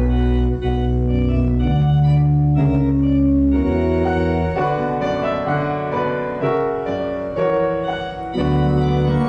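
Organ music: slow held chords over deep bass notes that change every second or two.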